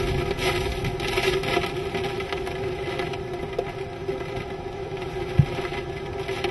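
Hurricane-force wind and rain, a steady rushing noise that swells and eases with the gusts, over a steady low hum. A single thump about five seconds in.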